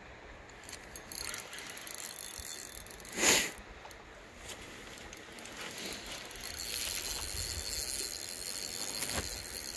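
Fishing reel clicking as a hooked steelhead is played, stronger in the last few seconds. A single loud knock comes about a third of the way in.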